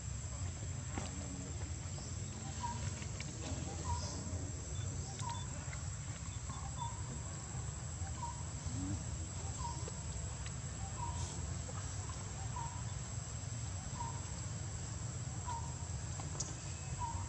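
Outdoor ambience: a steady high-pitched insect drone, with a short chirp repeated every second or so over a low steady rumble.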